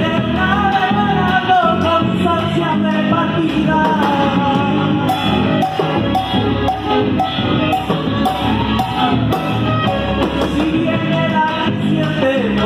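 A chacarera, an Argentine folk song: a voice singing over accompaniment with a steady, regular percussion beat.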